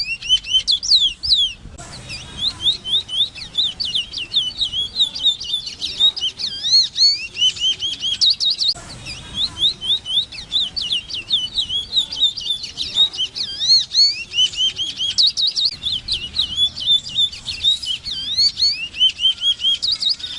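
Large-billed seed-finch (Sporophila crassirostris, the 'congo') singing: a long, fast run of varied high whistled notes and slurred trills, broken by short pauses about two and nine seconds in.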